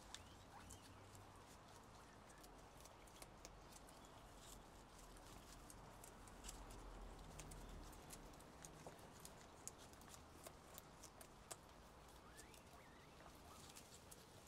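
Guinea pigs eating: faint, irregular small clicks and scuffles of nibbling and moving about, over a low steady hum.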